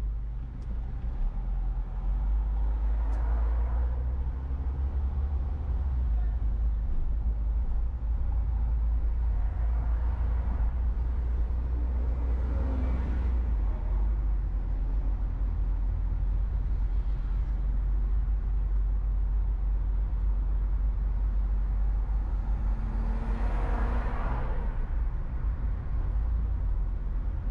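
Steady low rumble of a car driving on a city avenue, with other traffic swelling past about four times; the loudest pass comes a little before the end.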